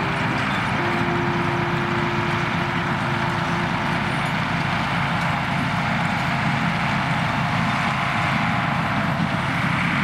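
Engine-driven hay mower pulled by a mule team, running steadily as it cuts standing winter rye.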